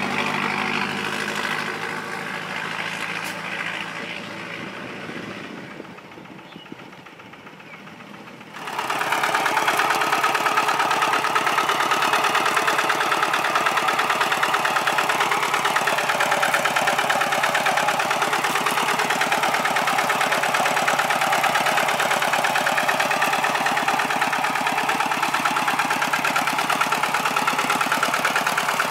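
A passing truck's engine fading away over the first several seconds, then, after an abrupt cut, a walking tractor's single-cylinder diesel engine running steadily and loudly as it ploughs through wet paddy mud, with a fast, even chugging pulse.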